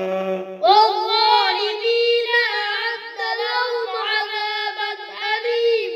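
A man's chanted Quran recitation ends within the first second. Then a high child's voice sings a melodic line of long, bending, held notes.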